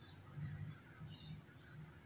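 Faint background ambience: birds chirping now and then in the distance over a low steady rumble.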